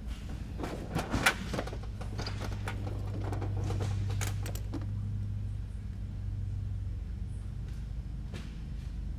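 Hands handling small parts and tools on a workbench: scattered light clicks and taps in a few clusters, over a steady low hum.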